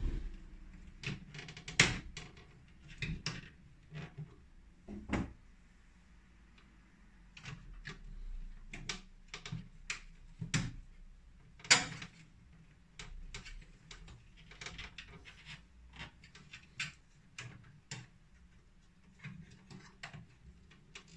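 Irregular small clicks and taps of electrical wires being worked into the push-in terminal block of an emergency lighting unit's clear plastic base, with two sharper knocks, one about two seconds in and one near the middle.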